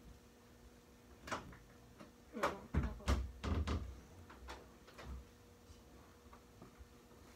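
A run of knocks and bumps, loudest from about two to four seconds in, with a few lighter clicks after: a phone camera being grabbed, handled and covered to stop the recording.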